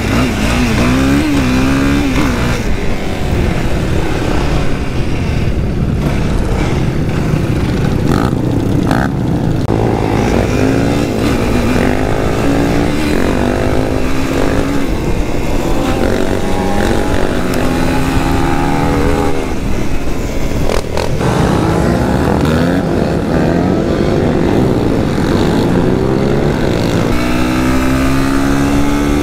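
Stock 2019 Yamaha YFZ450 ATV's single-cylinder four-stroke engine being ridden hard, its note rising and falling again and again as it revs up and shifts.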